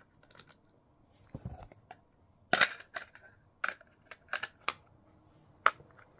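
Plastic smoke alarm being handled: a soft knock, then half a dozen sharp clicks and snaps spread over the last few seconds, the loudest about two and a half seconds in.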